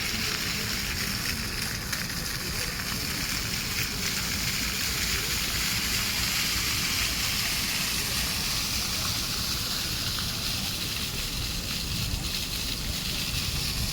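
Fountain jets spraying and splashing back into the basin, a steady rush of water.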